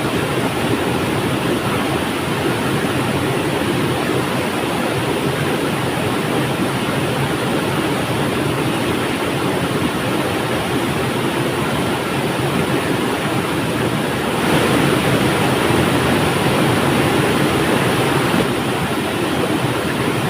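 Flowing river water: a steady, continuous rushing that swells a little louder for about four seconds, starting roughly two-thirds of the way in.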